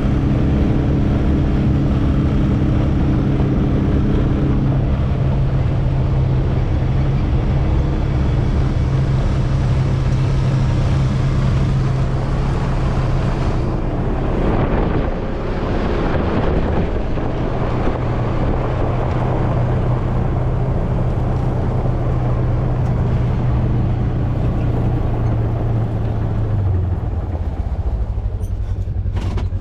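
Engine of a Ranger utility vehicle running steadily as it drives along. It dips and gets noisier for a few seconds about halfway, and its pitch drops near the end as it slows.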